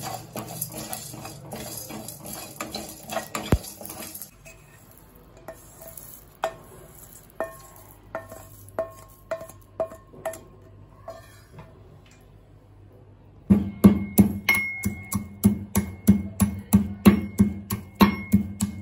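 Wooden spatula stirring and scraping dry-roasted whole spices (peppercorns, coriander seed, cumin, fennel) in a nonstick pan, then lighter regular taps as they go into a metal mortar. About thirteen seconds in, a pestle starts pounding the roasted spices in the metal mortar to powder them, about two ringing strikes a second, the loudest part.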